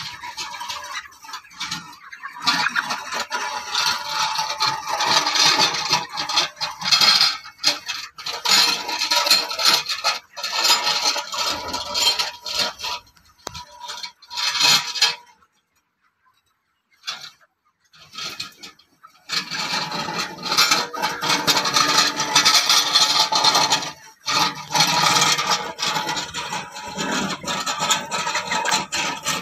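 Hand-pushed poultry litter raking machine scraping as it is dragged through the shed floor's litter, in stretches, with a few seconds of near silence about halfway through.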